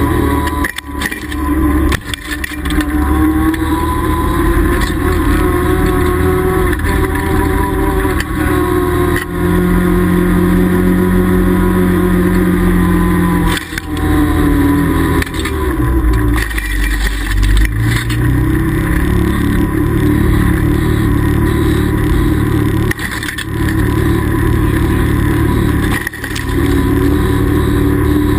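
Can-Am Commander side-by-side's V-twin engine running steadily while driving. Its pitch dips about halfway through and then climbs back up, and the sound drops out briefly a few times.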